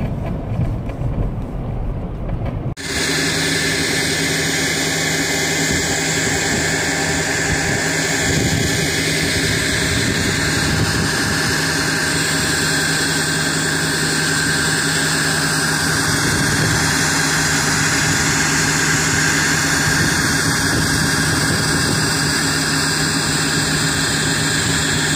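Vacuum tanker truck's engine running steadily with an even, unchanging pitch as it drives the tank's vacuum pump, sucking floodwater up through its hose. For the first three seconds a rougher, uneven outdoor noise is heard instead, before the engine sound comes in suddenly.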